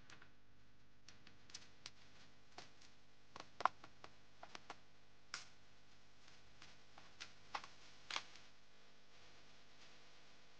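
Faint, scattered clicks and light taps of hand tools and gloved hands on engine parts while a broken piece of ignition-coil rubber boot is fished out of a spark plug well; a couple of the clicks are sharper, about a third of the way in and again near the end.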